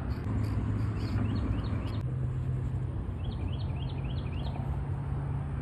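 Outdoor ambience: a steady low rumble of road traffic, with a small bird chirping in two quick runs of short chirps, about a second in and again past the middle.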